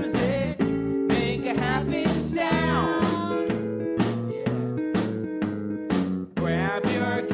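A band playing an upbeat song: a singer over guitar, a walking bass line and a steady drum beat.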